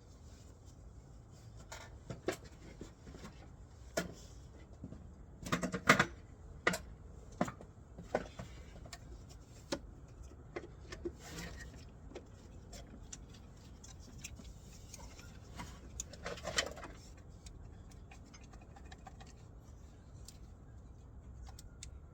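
Scattered clicks, knocks and light clanks of tools and metal engine parts being handled while working on the distributor, loudest in a cluster about six seconds in and again near sixteen seconds, over a low steady hum.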